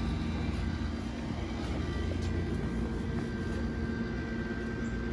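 Pit Boss vertical pellet smoker running: a steady low hum with a few faint steady tones, typical of its combustion fan.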